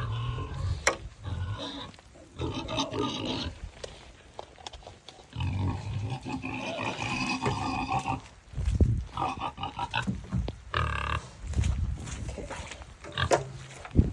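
A domestic pig grunting repeatedly in short, irregular bursts, with a couple of sharp clicks mixed in.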